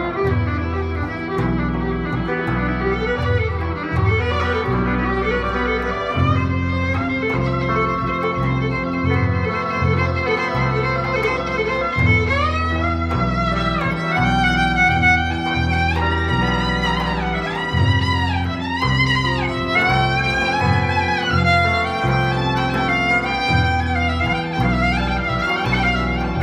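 Live violin and guitar playing belly-dance music: the violin carries the melody with vibrato and sliding notes, more prominent from about halfway, over guitar accompaniment and steady low notes.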